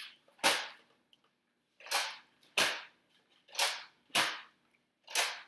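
Toy Nerf dart blasters firing, about six short sharp shots at uneven intervals.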